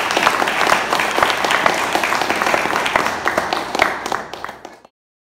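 Audience applauding, a dense patter of many hands clapping that thins out about four seconds in and cuts off abruptly just before the end.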